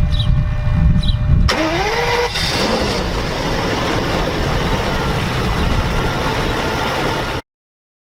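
BMW E36 car engine starting: after a low rumble, a sudden loud burst with a quickly rising tone as it fires. It then runs steadily for about five seconds before cutting off abruptly.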